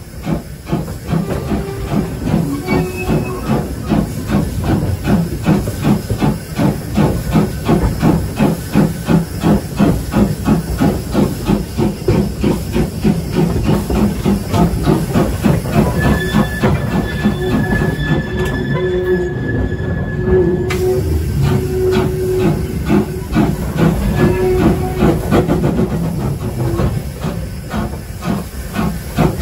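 Peckett 0-4-0 steam locomotive working along the line, its chimney exhaust beating evenly about two to three times a second over steam hiss and the rumble of the wheels. A steady high squeal sounds a little past halfway for about five seconds.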